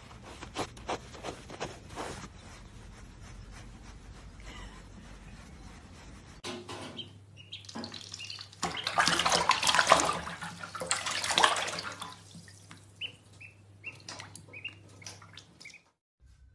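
A hand rubbing a sheep's fleece, a soft scratchy rustle with clicks; then water running into a sink, loudest about halfway through, and a duckling peeping several times near the end.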